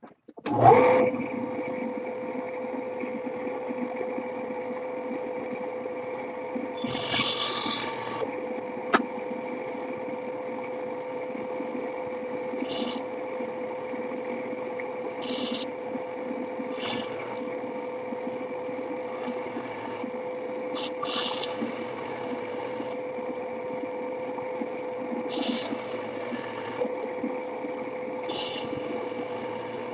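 An electric workshop power tool switches on with a sharp start and runs at a steady speed with a constant hum. Every few seconds a short, hissy burst of cutting or grinding rises over it as the work meets the tool.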